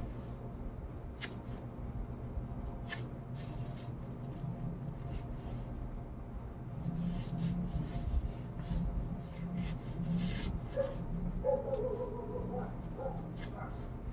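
A dog whimpering in short, high whines in the last few seconds, over a steady low hum and scattered clicks.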